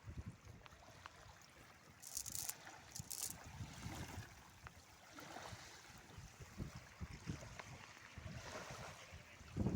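Faint river water trickling and sloshing, with scattered low knocks and two short hisses about two and three seconds in.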